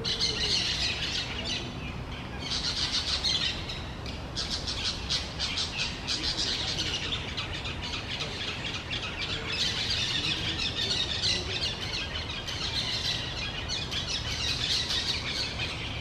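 Orange-chinned parakeets chattering: a continuous, rapid, high-pitched twittering with short squawky notes, broken by a few brief pauses.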